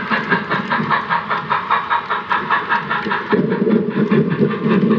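Running sound of a freight train rolling past, a steam locomotive on a model railroad: a quick, even beat of about five pulses a second over a steady rumble, which gets heavier about three seconds in.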